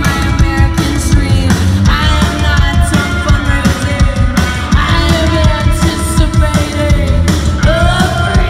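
Live post-punk band playing loud, with electric guitar and drums under a woman singing into a microphone; her voice comes up strongest about five seconds in and again near the end.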